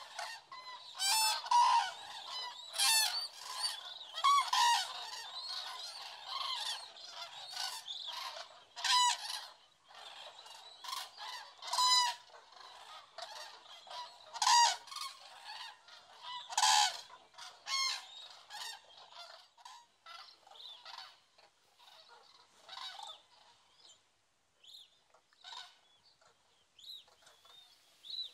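A flock of common cranes calling: loud trumpeting calls, many overlapping, coming thick through the first two-thirds and thinning out to fainter, scattered calls near the end.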